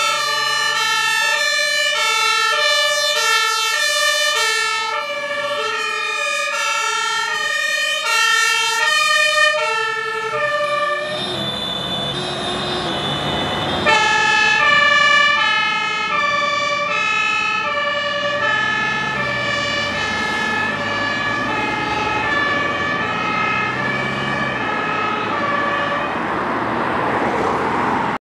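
German emergency vehicles' two-tone sirens (Martinshorn) alternating between two pitches. About 11 seconds in, a second siren with a different pair of notes takes over, with engine and road noise from the moving vehicle underneath.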